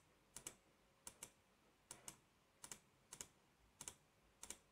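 Faint computer clicking: about seven pairs of quick clicks, a pair every second or less.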